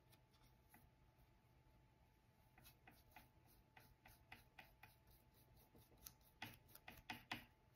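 Paintbrush stroking thinned wood stain onto a wooden cutout: very faint soft brushing ticks, coming more often in the last second or so.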